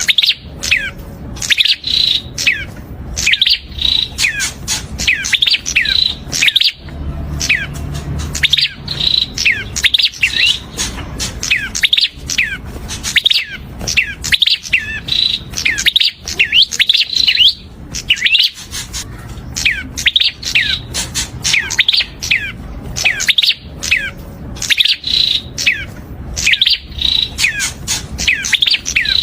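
Prinia (perenjak) singing: fast, continuous runs of sharp, high chirps, each note sweeping quickly downward, repeated with only brief pauses.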